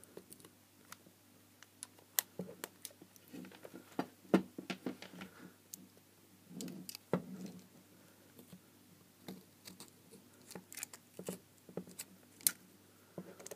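Irregular sharp clicks and scrapes of a small metal pick and precision screwdriver digging at the white waterproofing compound around the LED module of a 3 W LED garden spotlight, with soft handling knocks against its metal housing. The module appears to be glued in.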